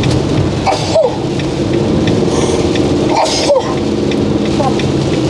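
Inside a motorhome's cab on a wet road: a steady engine and tyre drone with rain on the windscreen. The windscreen wipers sweep across the glass twice, about a second in and again at about three and a half seconds, each with a short squeak of the blade.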